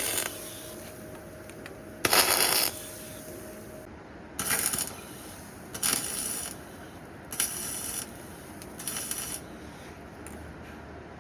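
A series of short bursts from an air or power tool, each about half a second long, coming roughly every second and a half and stopping near the end.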